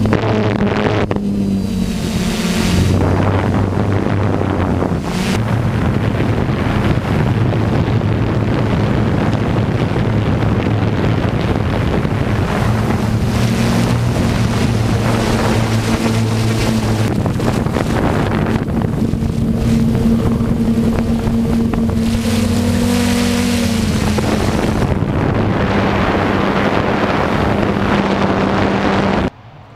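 Diesel engines of racing trucks running hard at speed, their steady engine note holding and stepping up and down in pitch. The sound cuts off suddenly just before the end.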